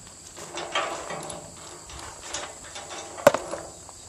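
Small metal handling noises as a tested A325 bolt and its nut are worked loose by hand and taken out of a Skidmore bolt tension calibrator. There is one sharp metal clink a little over three seconds in, followed by a few light ticks.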